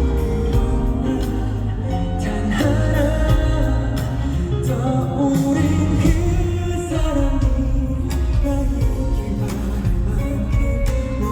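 Live pop ballad played through a concert sound system: a male voice singing over a band.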